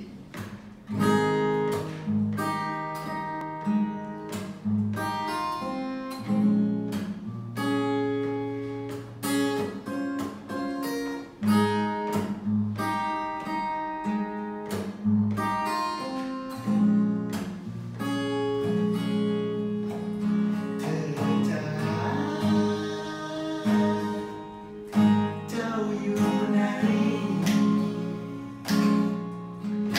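Steel-string acoustic guitar playing a relaxed chord intro of picked and strummed notes, moving through chords such as AbM7 and Bbm7; a singing voice joins in the second half.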